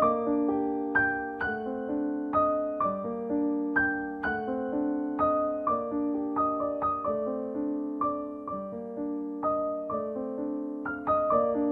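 Background piano music: a gentle, steady run of single piano notes.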